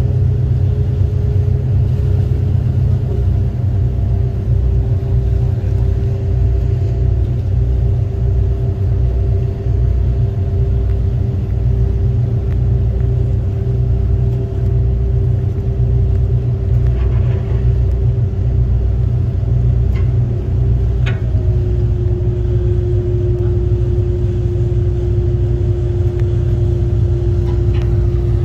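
Tour boat's engine running with a steady low drone and hum; the hum drops slightly in pitch about two-thirds of the way through, as the engine eases off.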